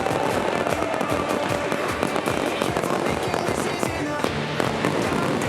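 Fireworks going off in a rapid, continuous run of bangs and crackles, with music playing underneath.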